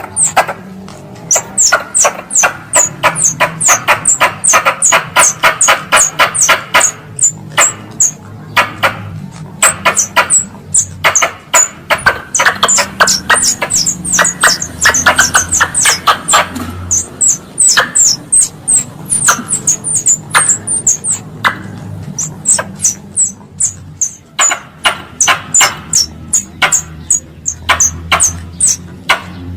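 Wild squirrel (tupai) calls used as a hunting lure: a long run of sharp, high chirps, several a second, broken by buzzy rattling stretches.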